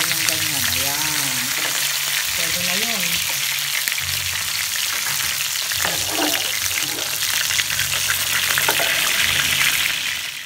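Chicken pieces sizzling in hot oil in a ridged grill pan, a steady frying hiss as they near doneness. It cuts off suddenly near the end.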